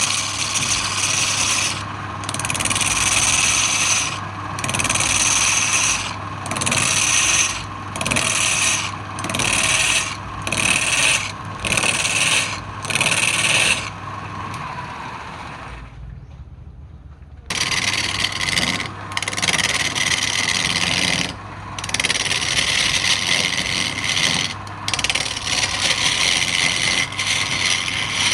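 A wood lathe runs with a steady motor hum while a turning tool is pressed against the spinning wood in repeated hissing, rasping cuts, roughly one a second. There is a short break about two-thirds of the way through.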